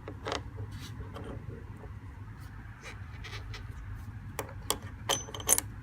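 Metal parts of a flanging tool clicking and clinking as it is assembled onto a brass thru-hull fitting: scattered sharp taps, the loudest cluster near the end with a brief high ring, over a low steady hum.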